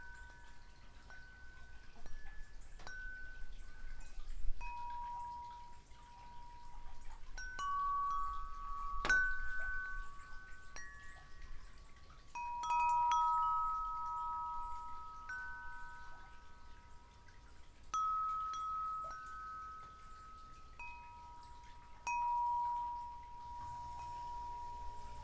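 Wind chimes ringing at uneven intervals, several different notes sounding and overlapping, each one ringing on for a second or more. A single sharp click comes about nine seconds in.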